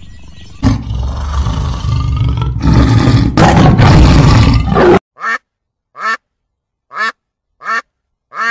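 A loud, rough, noisy animal sound with a heavy low rumble, growing louder and cutting off suddenly about five seconds in. It is followed by a duck quacking five times, short calls about two thirds of a second apart.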